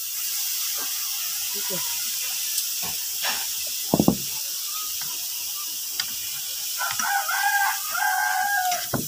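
A rooster crowing once: a wavering call of about two seconds near the end. Earlier, a few faint clicks and a brief knock about four seconds in.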